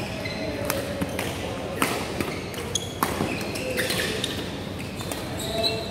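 Badminton rally: several sharp smacks of rackets striking the shuttlecock, spaced irregularly, with short high squeaks of shoes on the court mat, echoing in a large hall.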